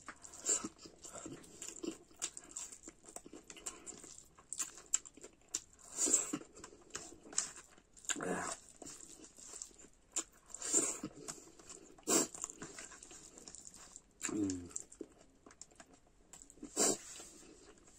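A man eating mashed food with his hand from a steel plate: scattered chewing and lip-smacking clicks. A short wavering whine comes about fourteen seconds in.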